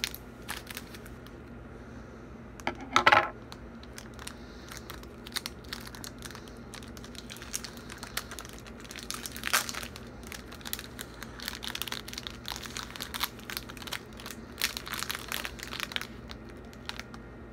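A Twix candy bar's plastic wrapper being snipped with scissors and then crinkled and torn open by hand, with many scattered crackles and one short louder sound about three seconds in.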